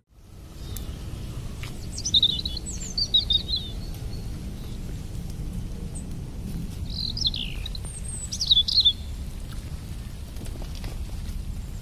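Birds calling in two spells of quick high chirps and whistles, about two and seven seconds in, over a steady low rumble of outdoor background noise.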